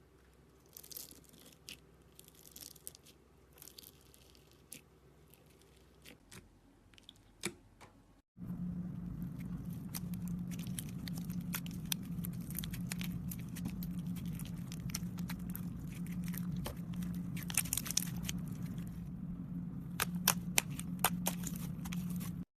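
Slime being squished and stretched by hand, making scattered crackles and popping clicks. About eight seconds in, it cuts to a louder take where dense crackling runs over a steady low hum.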